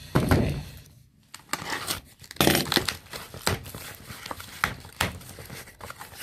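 Plastic packaging crinkling and rustling in irregular bursts as packaged toys are handled and pulled out of a shipping box.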